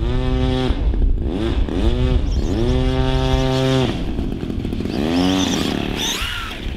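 Electric brushless motor and drivetrain of a Losi Promoto MX 1/4-scale RC dirt bike whining. The pitch sweeps up with each burst of throttle and then holds steady, several times over as the bike accelerates.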